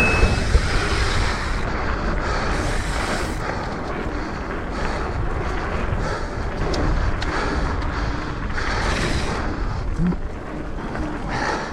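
Wind buffeting a helmet- or bar-mounted action camera's microphone, with the mountain bike's tyres rolling over the dirt trail.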